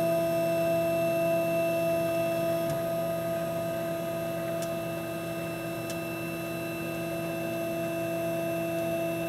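Laguna IQ CNC router humming steadily at one constant pitch while it homes its axes after power-on, with a few faint ticks.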